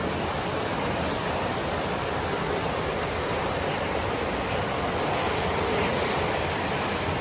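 O gauge model freight train rolling past close by on the layout's track: a steady, even rushing noise of wheels on rail and running motors.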